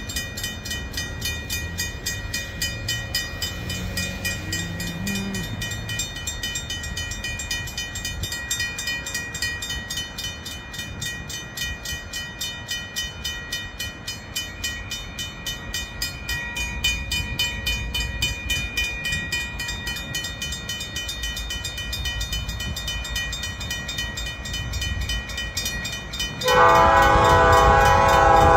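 An approaching diesel freight locomotive, heard as a low rumble under a faint ringing that pulses quickly. About 26 seconds in, its air horn starts to blow, loud and sustained, a chord of several notes.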